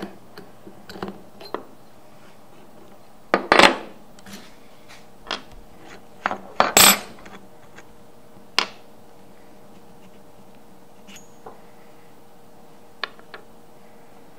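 Irregular metallic clinks and clanks of small steel parts being handled: a wrench on the tapping head's collet nut, and the collet and nut knocking together and being set down on a wooden bench. The two loudest clanks come about three and a half and seven seconds in, with a few lighter clicks later.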